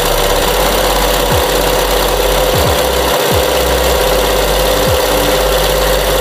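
Sewing machine running steadily with its bobbin winder engaged, spinning a bobbin to wind thread onto it; the just-repaired winder is turning properly again.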